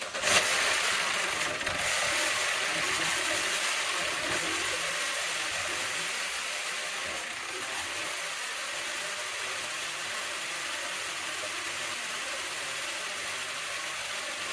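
Chevrolet 1.4 L Ecotec four-cylinder engine starting and running roughly, with a pulsing mechanical clatter from a valvetrain that is not getting oil: the sign of a failed oil pump and no oil pressure. It is a little louder just after it catches and settles to a steady level after a few seconds.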